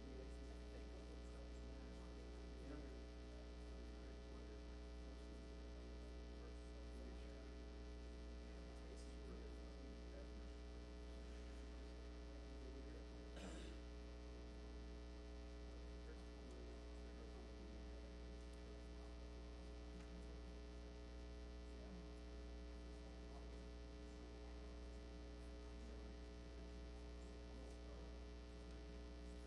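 Faint, steady electrical mains hum with a ladder of even overtones, and one faint click about halfway through.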